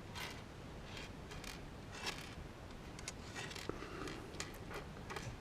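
Small kit parts, plastic knobs and metal jacks, handled and set down on a table: faint, scattered light clicks and rustling.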